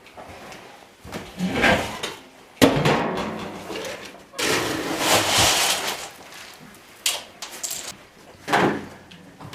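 A sharp bang about two and a half seconds in, then a couple of seconds of rustling and scraping, with further knocks near the end.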